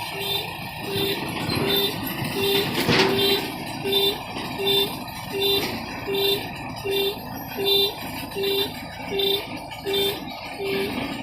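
Electronic warning beeper on a rice combine harvester, sounding short even beeps about three every two seconds over the machine's running noise. There is a sharp click about three seconds in.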